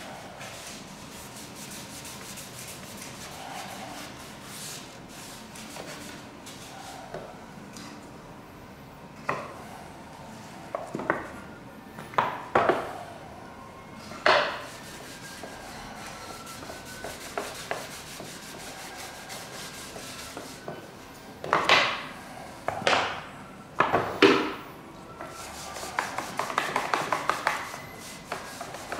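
Kitchen roll rubbing black lead (graphite in methylated spirit) onto the wooden shutter of an organ wind control valve, with several sharp wooden knocks as the piece is handled. A quick run of small ticks comes near the end.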